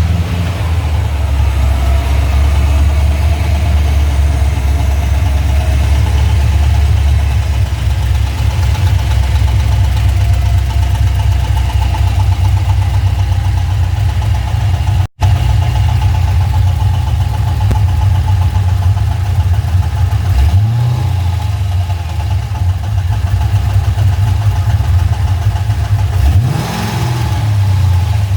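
GM LS1 5.7-litre V8 idling just after start-up, with a knock from the top end of the driver's side bank that the owner leans towards being a lifter, with oil level and pressure good. The engine is revved briefly twice, about two-thirds in and near the end.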